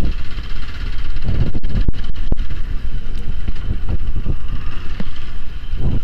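Hero XPulse 200's single-cylinder engine running at low road speed with a continuous low rumble, picked up through the rider's clip-on lavalier mic.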